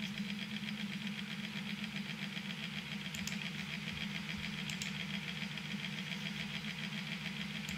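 Steady low mechanical hum with a fast, even flutter, like a small motor or fan running, and a couple of faint clicks about three and five seconds in.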